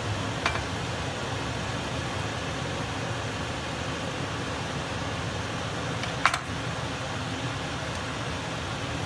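Steady low background hum and hiss, broken by two short sharp knocks, one about half a second in and a louder one about six seconds in. The louder knock fits a kitchen knife being set down on a wooden cutting board.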